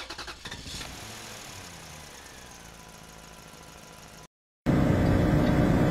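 A title-card sound effect fades out, its pitch sliding down. After a brief silent cut about four seconds in, a much louder vehicle engine starts running steadily, heard from inside the vehicle.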